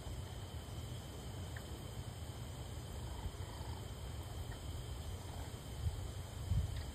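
Raccoons feeding on seed and kibble, with faint crunching and rustling over a continuous low rumble; two louder low thumps near the end.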